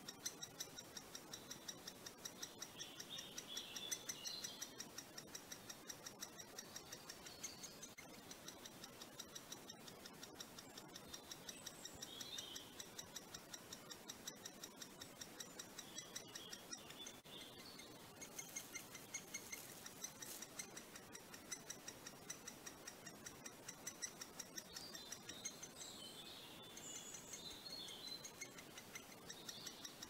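Great spotted woodpecker nestling calling from the nest hole: a faint, fast, steady ticking of high calls, several a second, the begging call of a chick waiting to be fed. Other small birds chirp now and then in the background.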